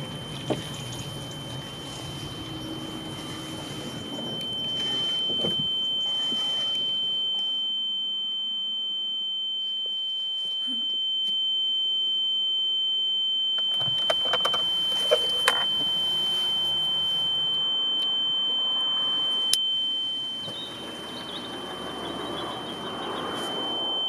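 A steady high-pitched electronic tone held without a break, over faint car-interior noise, with a few sharp clicks in the middle.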